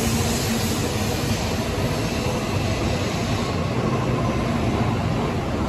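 N700-series Shinkansen train pulling out of the station under power, its cars passing close by with a steady, loud rush of wheel and motor noise. The high hiss eases off in the second half as the train draws away.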